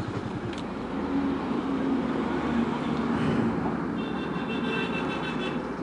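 Motorcycle engine running at low speed with road and wind noise, and a high-pitched ringing tone about four seconds in that lasts a second and a half.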